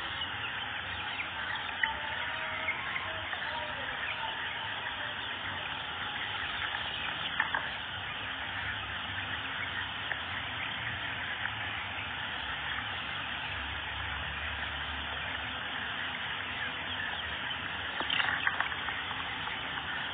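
A large flock of young chicks of the local Arab chicken breed peeping all together, a dense, continuous chorus of overlapping cheeps. A few louder peeps stand out about seven seconds in and again near the end.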